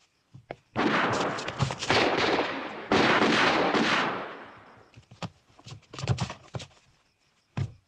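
Gunfire in a film shootout: a couple of single shots, then two long bursts of rapid shots over the first four seconds that die away, followed by scattered single shots.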